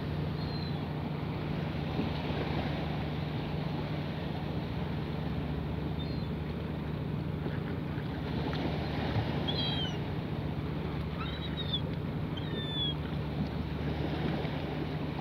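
Gulls giving several short, falling high-pitched calls over a steady wash of wind and water, with a steady low hum underneath.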